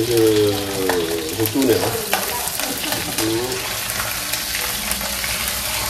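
Whole fish frying in oil in a pan, a steady sizzle, with clicks and scrapes of a wooden spatula as the fish is turned over. A wavering, pitched squeal is loudest in the first two seconds and comes back briefly near the middle.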